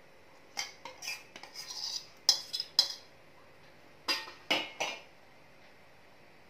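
Metal spoon scraping and clinking against the bowl and the tawa as thick oats chilla batter is scooped out and spread thin on the griddle. It comes as a string of short scrapes and clicks, loudest a little past the middle, and stops about five seconds in.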